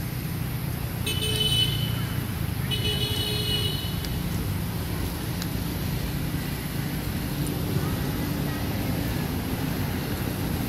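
Steady low rumble of road traffic, with two flat-pitched vehicle horn toots, the first about a second in and the second lasting about a second, shortly after.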